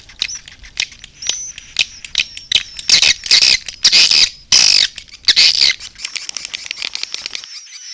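Swiftlet lure call: a recording of swiftlets giving rapid dry clicks and high twittering chirps, with a run of longer, denser twittering calls in the middle. The calls thin out and fade near the end.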